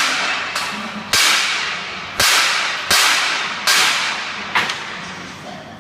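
A series of about six sharp metallic bangs, roughly one a second, each trailing off in a bright echo of about half a second in a large factory hall.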